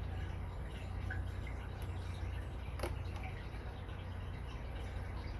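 Small metallic clicks and scrapes of a lock pick and tension wrench working the pin tumblers of an American 1165 six-pin padlock, with one sharper click about three seconds in, over a steady low hum.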